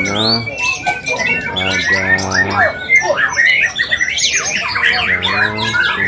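White-rumped shamas (murai batu) singing in competition: a dense, loud, unbroken stream of fast whistles, trills and rising and falling sweeps from several birds at once.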